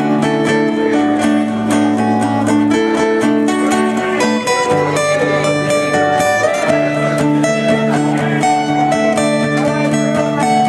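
Live acoustic guitar music: strummed chords played steadily with no pause.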